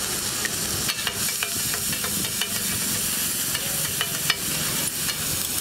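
Chopped vegetables sizzling in oil on a large flat griddle (tawa), with a steady hiss. From about a second in, a metal utensil clicks and scrapes against the griddle as the food is stirred, with one sharper knock about four seconds in.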